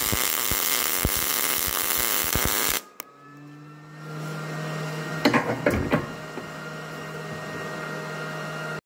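Miller 211 MIG welder arc running on thin auto body sheet metal, a steady hiss with many sharp clicks, cutting off abruptly about three seconds in. The voltage is set to 6, above the recommended setting for this sheet: the weld pool gets away quickly and burns through. A quieter low steady hum follows.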